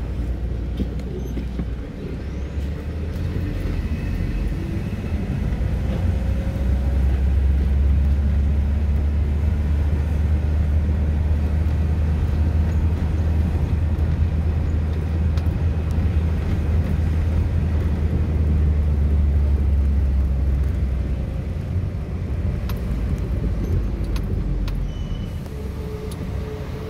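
Engine and road rumble of a moving vehicle heard from on board, a steady deep drone that swells from about six seconds in and eases off again after about twenty seconds.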